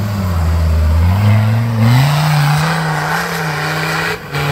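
Engine of a GAZ 69-based off-road trial special revving hard as it claws up a steep mud bank. The revs climb about a second and a half in and hold high, with a hiss of spinning tyres and flung dirt over it. The engine falls off briefly just before the end.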